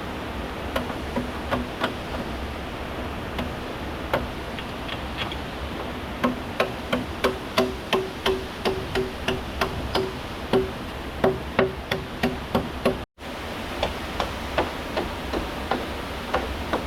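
Repeated sharp knocks of a tool striking bamboo, each with a short hollow ring, sparse at first and then about two to three a second from about six seconds in. Underneath is a steady rush of running river water.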